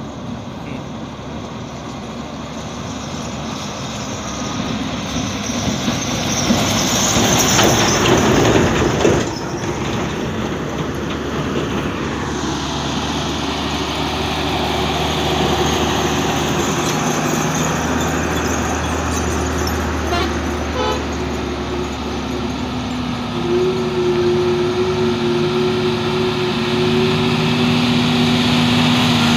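Diesel lorries driving past on a dirt road, engines running. One passes close about a quarter of the way in, the loudest moment with a rush of engine and tyre noise. Others follow with a steadier engine drone whose pitched note grows stronger near the end.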